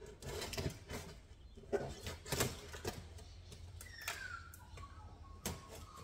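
A cardboard box being opened by hand: flaps and packing rustling and scraping, with scattered crinkles and knocks. About four seconds in, a thin high tone falls in pitch and then holds briefly.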